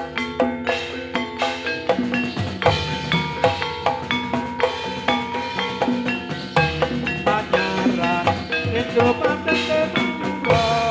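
Javanese gamelan-style dance accompaniment: rapid, evenly struck metallophone notes over drum beats in a steady rhythm.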